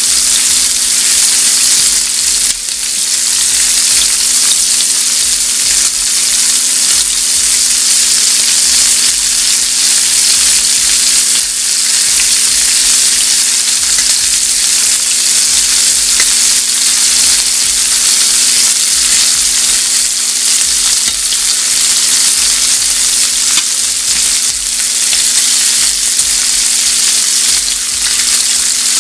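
Shrimp searing in hot butter in a skillet, sizzling steadily as they are turned over with tongs.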